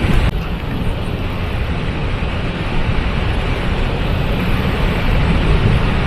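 Waterfall, water pouring and rushing steadily with a deep, even roar of noise. A short louder surge comes right at the start.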